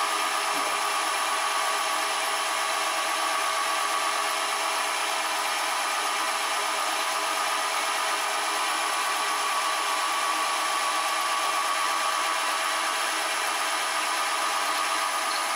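Benchtop milling machine running steadily, a 1.5 mm end mill cutting a slot in a brass block, with an even, unbroken whine.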